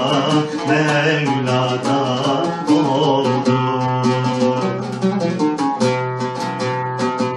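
Rumeli Turkish folk song in makam Hüseyni, usul Sofyan, played on plucked string instruments: quick, closely spaced notes over a steady low note.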